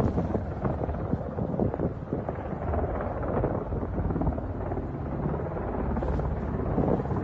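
Steady low rumbling noise, with wind buffeting the microphone.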